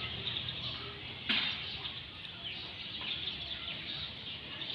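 Outdoor ambience: birds chirping over a steady high hiss, with a single sharp click about a second in.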